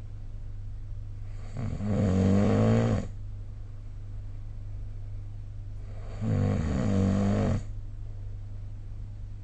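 A sleeping person snoring: two pitched snores, each about a second and a half long and four to five seconds apart, over a steady low hum.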